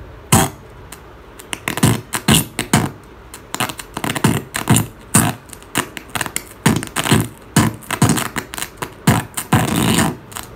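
A song plays from a Klipsch ProMedia 2.1 BT satellite speaker in irregular stop-start bursts of thumps and hits, cutting in and out as the input circuit board is pressed. This is a sign of an intermittent left-channel connection, which the repairer traces to a cracked PCB trace.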